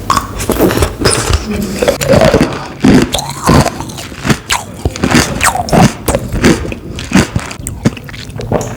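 Ice cubes crunched between the teeth, close to the microphone: a run of sharp, irregular crunches as the ice is bitten and chewed.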